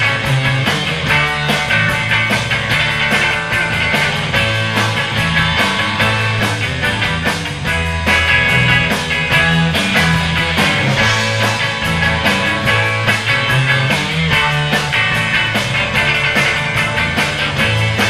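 Instrumental surf rock played live by a band on electric guitars, bass and drums, with a steady drum beat and a moving bass line under the lead guitar, a Mosrite electric.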